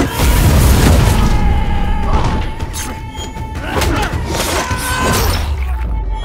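Action-scene film soundtrack: music with a held high tone and a heavy low rumble, cut through by repeated heavy thuds and impacts of a fight.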